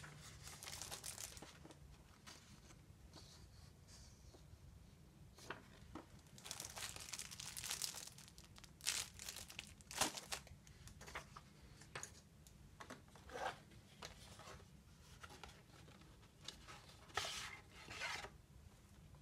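Plastic wrapping and cardboard packaging crinkling and rustling as they are handled, in a series of irregular bursts with a few sharp taps among them.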